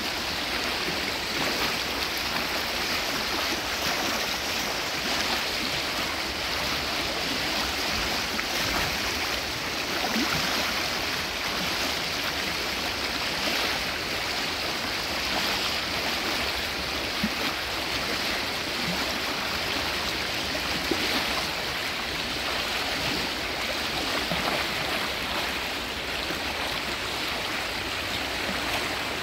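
Steady sound of flowing creek water, unchanging throughout.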